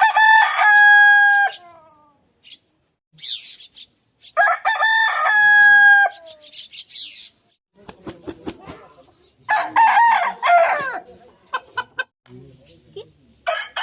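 Roosters crowing: two long cock-a-doodle-doo crows, each ending on a held note, at the start and about halfway through. A rougher, shorter crow follows near ten seconds in, with clucking and short clicks between the crows.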